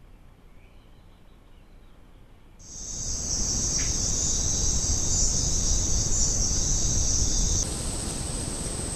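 Insects trilling in a steady high-pitched chorus that starts abruptly a little over two seconds in, after a quiet start, with low rumbling noise underneath. Near the end the chorus changes to a thinner, higher steady tone.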